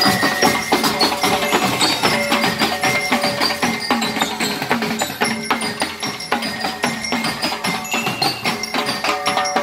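A banda rítmica playing: metal bell lyres carry a melody over a steady, driving beat of snare and bass drums.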